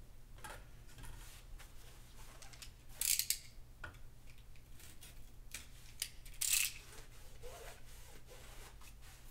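Double-sided tape being handled and pressed along a window frame: scattered small clicks and two short scratchy noises, about three seconds in and again about six and a half seconds in.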